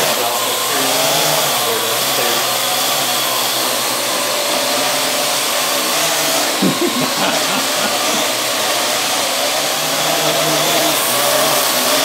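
Parrot AR.Drone quadcopter's four electric rotors whirring steadily in flight, their pitch wavering up and down as the motors adjust to hold and climb. A couple of brief low bumps come a little past halfway.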